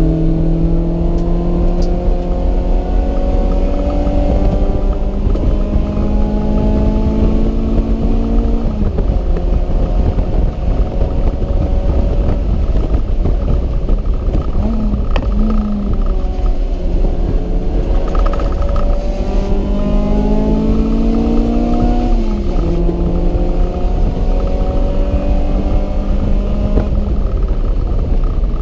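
Honda CRX's engine under load on track, its pitch climbing slowly as it pulls through the revs and then breaking off twice when the driver lifts or shifts. Heavy wind and road rumble runs underneath throughout.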